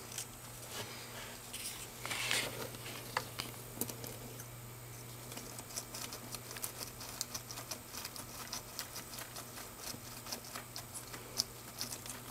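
Blue-tongued skink tearing apart and chewing a yellow flower on bark-chip bedding: a long run of small quick clicks and crackles from its jaws and the chips it knocks about, thickest in the second half.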